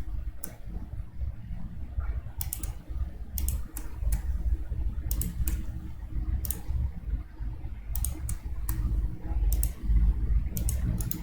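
Scattered sharp clicks, many in quick pairs, from working a computer's mouse and keys, over a steady low hum.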